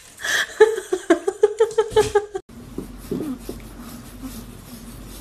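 A small pet gives a quick run of short, high, pitched calls, about five a second for nearly two seconds, and then they cut off. After that comes a faint steady low sound: a kitten purring while its head is scratched.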